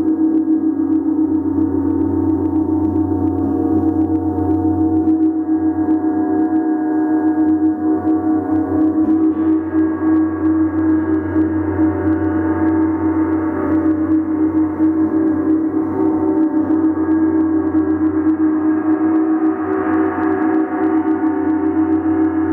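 Large planetary Jupiter gong played without pause, a dense, sustained wash of many overlapping ringing tones that shimmers in loudness and grows a little brighter near the end.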